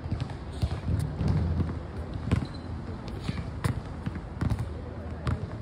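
Tennis ball impacts: a series of sharp, irregularly spaced pops from a ball struck by a racket and bouncing off a hard court and a concrete practice wall.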